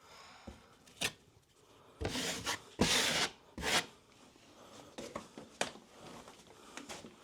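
Steel drywall knife scraping over wet joint compound and paper tape on a wall join, in a series of short strokes. The loudest strokes come about two to four seconds in.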